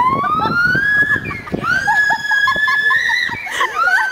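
Gibbon calling: long clear whooping notes that rise in pitch and then hold, three in a row, with short lower notes between them.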